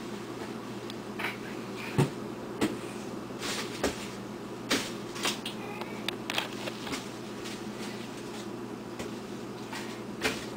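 Scattered sharp clicks and brief rustles of objects being handled, over a steady low hum. The clicks bunch together through the middle, with one more near the end.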